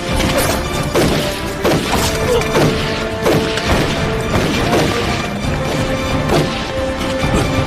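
Dramatic film score with a rapid series of about a dozen sharp crashing impacts, roughly one every half second to second.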